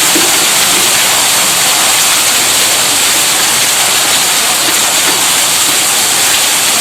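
Tube well's electric pump running, heard as a steady, even rush of water like a waterfall, with no pitch or rhythm.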